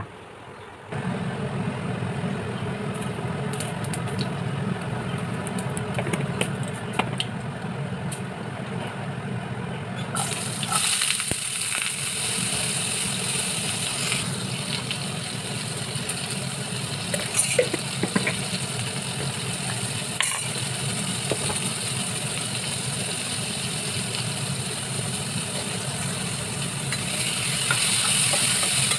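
Diced pumpkin frying in hot oil in a pan: a sizzle starts about ten seconds in and gets louder near the end, with a few sharp clicks of a steel spatula against the pan. A steady low hum runs underneath from about a second in.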